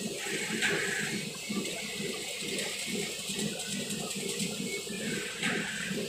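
Full-automatic chain link fence making machine running, a steady mechanical hiss and whir as it weaves wire mesh. Two brief louder swishes come about half a second in and near the end.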